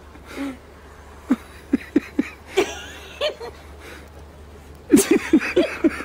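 A person laughing: a few scattered short chuckles, then a quick run of laughs near the end.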